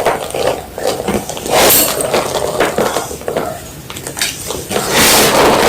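Block of white gym chalk being crunched close to the microphone: a string of dry, irregular crunches, loudest about one and a half seconds in and again near five seconds.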